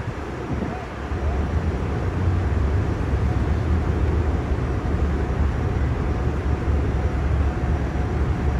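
Steady low rumble of street traffic and idling heavy vehicle engines, growing a little louder about a second and a half in.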